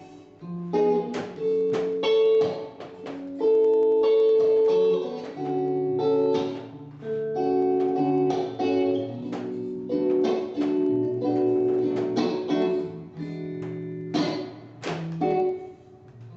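Acoustic guitar playing an instrumental passage of the song without singing: picked and strummed notes that ring on, in an even rhythm.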